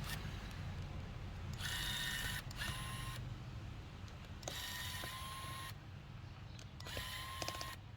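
Small electric screwdriver whirring in four short bursts, each a second or less, with a steady whine, as screws are backed out of the phone's frame.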